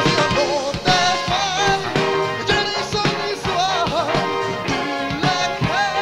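Melodic rock song played by a band: a male lead voice singing held, wavering notes over electric guitar and a steady drum-kit beat.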